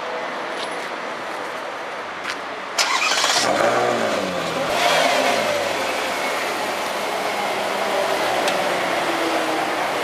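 Ferrari California's V8 starting about three seconds in with a sharp rev flare that sweeps up and falls back, then running at a steady idle.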